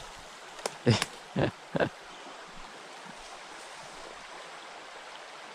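Shallow stream water running steadily, with four short, sharp sounds close together between about one and two seconds in.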